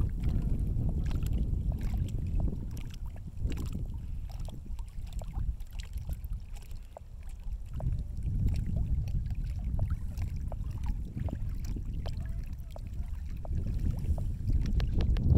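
Gusty wind blowing across the microphone over small lake waves lapping and splashing on a stony shore. The gusts ease about halfway through and build again near the end.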